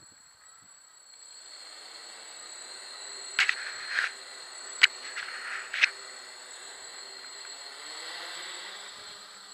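Electric multirotor drone sitting on the ground with its motors spinning at idle: a low hum that builds from about a second and a half in and wavers in pitch, over a steady high whine. Four short sharp sounds come in the middle.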